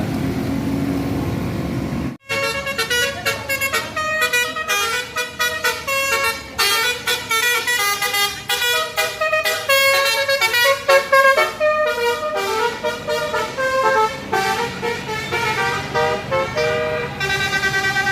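Tour bus's telolet basuri musical horn playing a fast melody of short, changing notes. It starts suddenly about two seconds in, after a stretch of steady engine and road noise.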